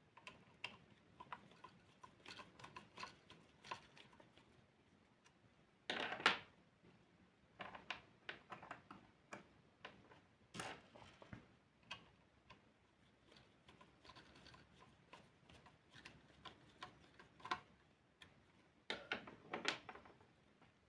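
Irregular small clicks and taps of small toy-car parts being handled, with a louder scrape or rustle about six seconds in and a cluster of them near the end.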